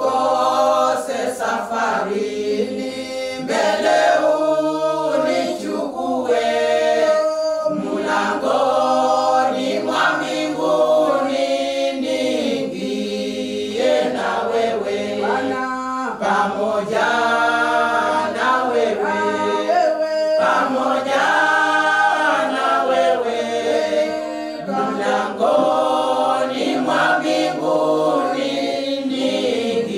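A group of voices singing together without instruments, in long held notes.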